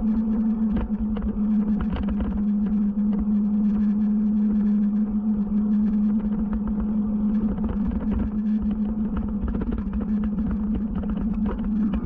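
Electric bike motor humming steadily at cruising speed, with wind rumble on the action camera's microphone and scattered small knocks from the ride.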